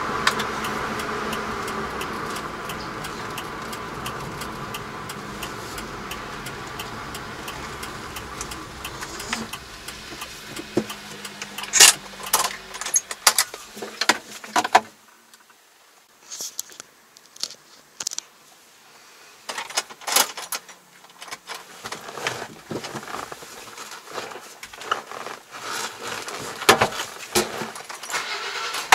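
Kei light truck heard from inside its cab: steady engine and road noise that fades as the truck slows, then a run of sharp clicks and jingling rattles as it rolls slowly into a yard.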